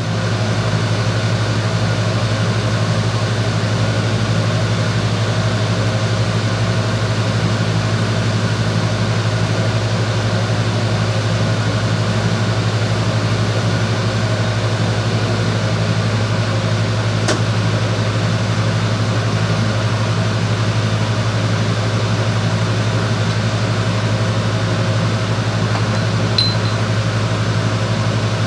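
Steady electrical hum with a fan-like drone from the welding setup, with a few faint ticks near the end.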